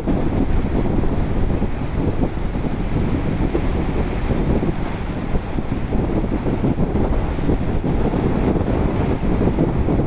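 Ocean surf washing steadily, with wind buffeting the microphone into a constant uneven rumble.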